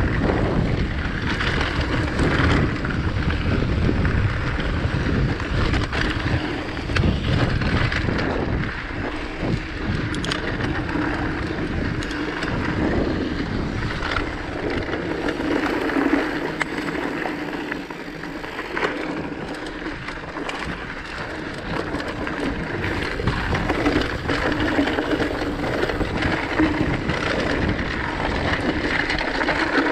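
Rockrider mountain bike rolling over rocky dirt singletrack: steady tyre noise with frequent knocks and rattles as it goes over stones and bumps, and wind on the microphone.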